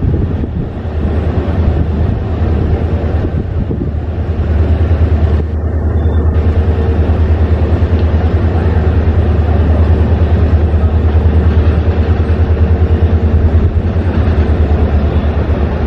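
Diesel locomotive of the Indian Railways WDP4 class hauling a passenger train slowly toward the listener, its engine giving a steady low drone with a rapid throb. It grows louder about five seconds in as the locomotive draws near.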